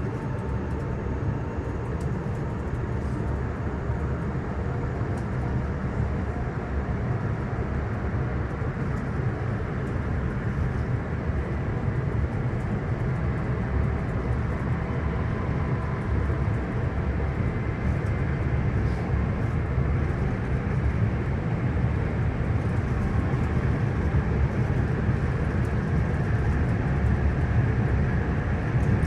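Cabin interior of a Hitachi AT300 electric multiple unit on the move: a steady low rumble of running gear on the track with faint whining tones above it. It grows slightly louder over the stretch.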